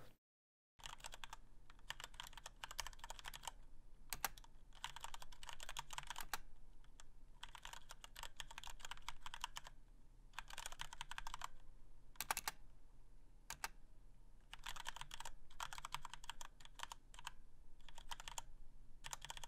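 Faint typing on a computer keyboard: quick runs of key clicks in bursts of a second or two, with short pauses between them, starting about a second in.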